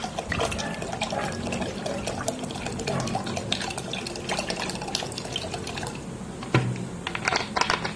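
Water trickling and splashing steadily, with many small drips and pops running through it.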